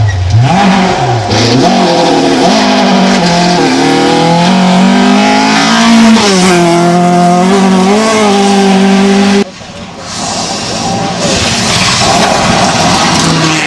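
Rally car engine at full throttle on a gravel stage, revving hard, its pitch climbing and dropping through gear changes. After a sudden drop about two-thirds of the way in, a second rally car's engine is heard approaching.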